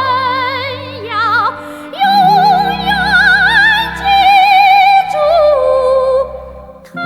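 A woman singing a Chinese ballad in a trained, operatic style with wide vibrato, over sustained orchestral accompaniment. The sung phrases come with short breaks, and the sound fades briefly near the end before a new phrase comes in.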